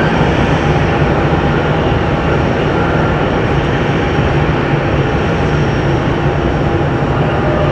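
Jet airliner's engines running: a loud, steady rumble with faint steady tones above it.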